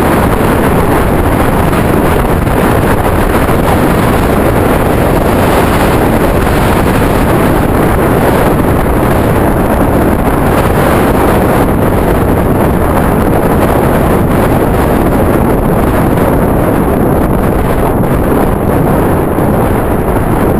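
Steady, loud wind noise buffeting the microphone of a camera riding on a road bike at speed.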